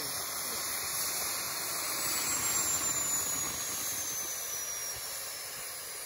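Homemade turbo burn barrel running under boost: the 6.0 Power Stroke diesel's Garrett turbo and the wood fire it feeds make a steady, loud hiss. A faint high whine falls slowly from about two seconds in as the turbo slows.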